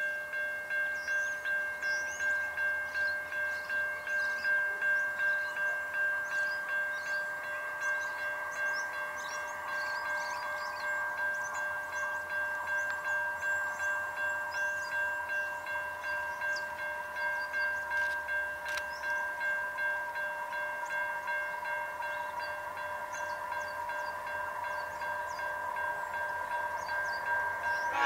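Level crossing warning bell ringing evenly at about two strikes a second, signalling an approaching train, with small birds chirping.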